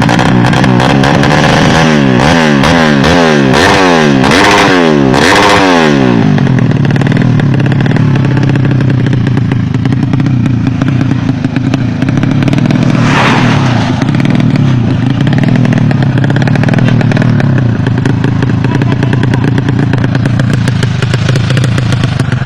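Engine revved up and down repeatedly for the first few seconds, then running steadily at a constant speed.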